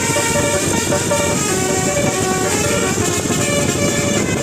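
Bus telolet horn, a multi-trumpet Basuri electric horn, playing a tune of held notes that step from pitch to pitch, several trumpets sounding together, over a dense background rumble.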